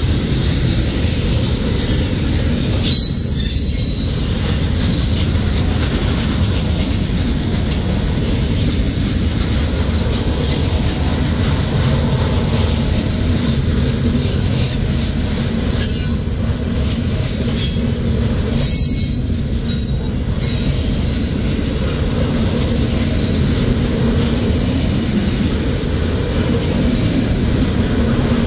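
Freight train of open-top hopper cars rolling past: a steady rumble of steel wheels on rail. Wheel squeal comes and goes, with a few brief clanks.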